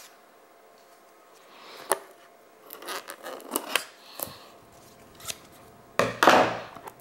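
Scraping, picking and tapping at the plastic shrink wrap on a cardboard trading-card box while trying to break it open: scattered sharp clicks and short scratchy rustles, the loudest a scrape about six seconds in.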